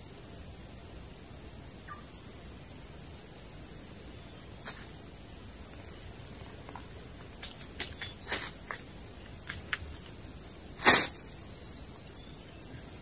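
Steady high-pitched drone of insects, crickets, running without a break. A few small clicks come scattered through the second half, and a louder short snap comes about eleven seconds in.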